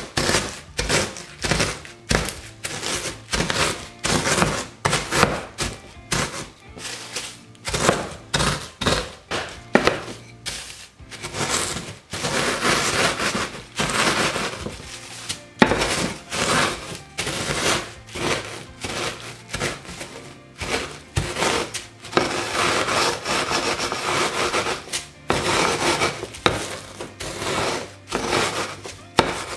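Wooden rolling pin pressing and rolling over biscuits in a plastic bag, crushing them into crumbs with many irregular cracks, knocks and crinkles. Background music plays underneath.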